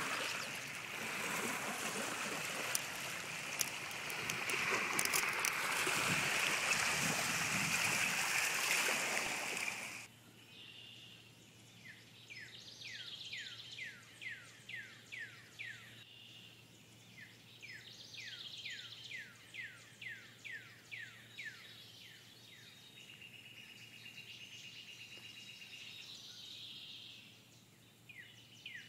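A steady rushing of water for about the first ten seconds, then it cuts off abruptly. After that a songbird sings repeated phrases of quick, falling whistled notes, several a second, with short pauses between phrases.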